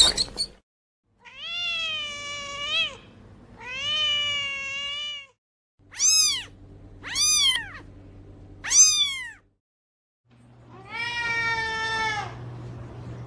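Domestic cat meowing: two long meows, then three short meows, then another long meow.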